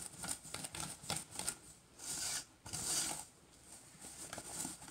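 A utensil mixing a thick egg, sugar and flour paste in a stainless steel bowl: quick clicks and scrapes against the metal, with two longer hissing scrapes about two and three seconds in.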